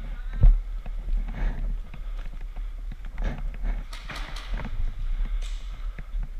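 Irregular knocks and rustles of a player moving about, with a heavy thump about half a second in.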